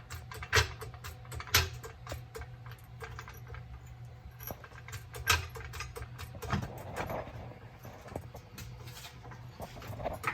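Scattered clicks and knocks of hand tools and metal parts during work on a car's exhaust, with a few louder knocks standing out, over a low steady hum.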